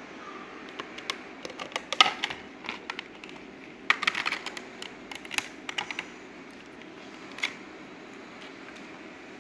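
Light clicks and clatter in two quick flurries, with one more click later, over a steady hum.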